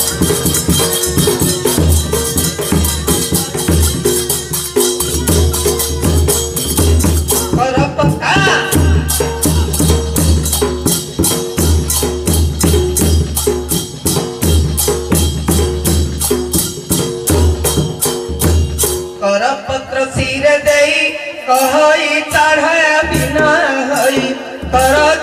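Live Odia folk dance music: a large barrel drum (dhol) beating a fast rhythm under steady clashing of small hand cymbals. A man's singing comes in about eight seconds in, and a few seconds before the end the drum drops out, leaving the voice and cymbals.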